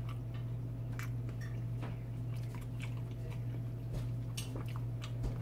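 A person chewing food with faint, scattered wet mouth clicks, over a steady low hum.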